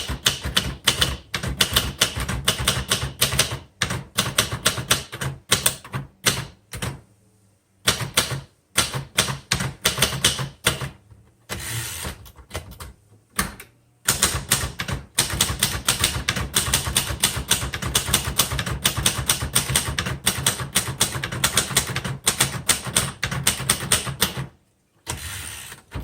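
1968–69 Sears Cutlass manual typewriter, built by Royal, being typed on: a fast run of key and typebar strikes, broken by a few short pauses.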